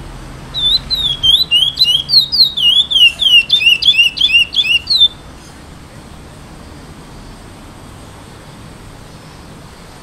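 Young chestnut-bellied seed finch (curió), an 8-month-old brown male just starting to sing, gives one phrase of quick whistled notes, about four or five a second, each swooping down and up. The phrase starts about half a second in and stops after some four and a half seconds.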